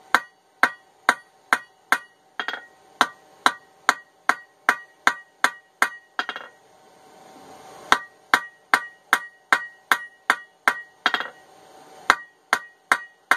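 Blacksmith's hand hammer striking hot steel on an anvil in light, steady blows, about two a second, each with a metallic ring. The blows draw out a point on a reforged ball peen hammer head. They break off for about a second and a half midway, then resume.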